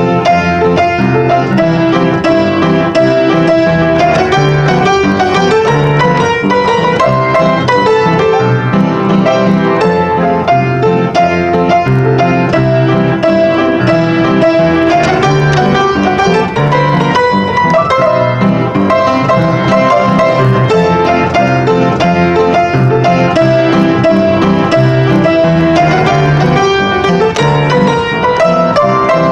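Upright acoustic piano played continuously and fairly loudly: an improvised ragtime piece, with busy right-hand figures over low bass notes and chords.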